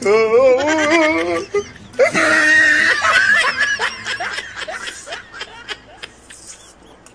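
Laughter, most likely an edited-in laughing sound effect: a wavering, trembling laugh, then a louder burst of laughter about two seconds in that trails off into quicker, fainter chuckles.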